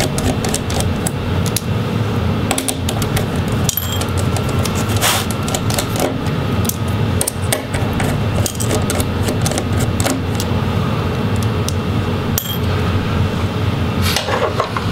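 A screwdriver backing small screws out of a laptop's display hinges, with a close, busy run of small clicks and taps as the screwdriver and hinge are handled.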